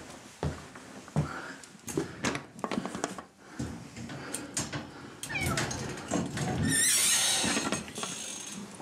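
Domestic cats meowing in rising, wavering calls, with a loud hiss lasting about a second near the end: an angry cat. A few sharp knocks come first.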